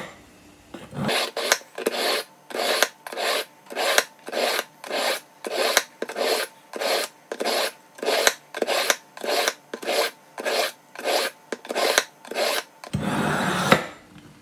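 Steel kitchen knife pulled again and again through the fine ceramic wheel slot of a MinoSharp 3 Plus water sharpener: about twenty quick grinding strokes, roughly two a second, then one longer rasp near the end. This is the final fine-stone stage that brings up the edge.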